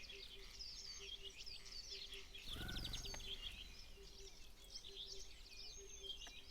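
Many small songbirds chirping and calling at once, over a low note that pulses several times a second. A brief, louder rattling flurry comes about two and a half seconds in.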